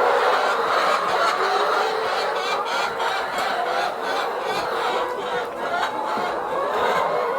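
A flock of young laying hens clucking and calling all together, a dense, steady chatter of many birds, with a few sharp ticks around the middle.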